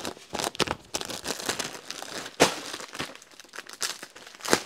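Plastic packets of suit sets crinkling and rustling as they are handled, in irregular sharp snaps, the loudest about halfway through and just before the end.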